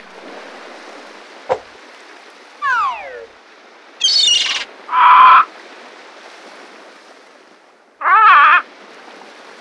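Cartooned bird calls over a steady background hiss: a sharp click, then falling whistles, two short calls, and a warbling squawk about eight seconds in from the grey heron.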